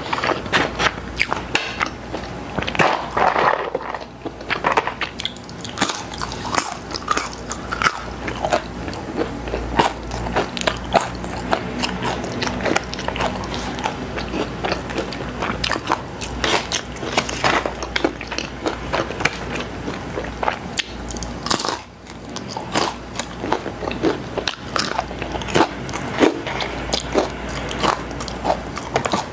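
A person chewing and biting food close to the microphone: a steady run of small crisp clicks and crunches.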